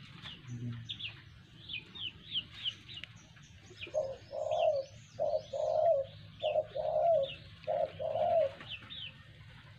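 A dove cooing: a run of about seven low notes beginning about four seconds in. High, falling bird chirps repeat behind it.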